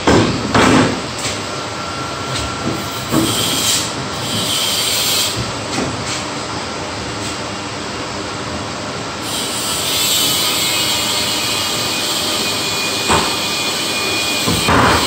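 Metal-framed scaffold plank knocking and clanking as it is lifted off its stands and carried away, over a loud steady rushing noise of running machinery that grows fuller about two-thirds of the way through.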